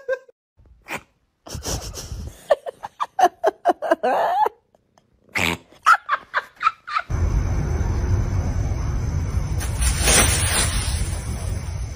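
Several short cat cries and meows in quick succession. About seven seconds in, a steady rushing noise starts and lasts about five seconds.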